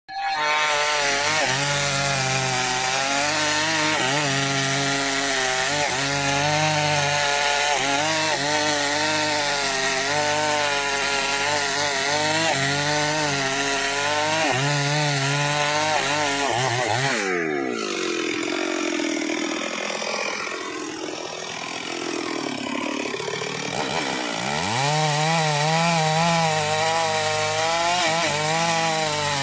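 Chainsaw cutting through teak, its engine running under load with a pitch that wavers as the chain bites. A little past halfway the engine pitch falls away and stays low for several seconds, then revs back up and cutting resumes. The chain is dull, which makes the cutting hard going.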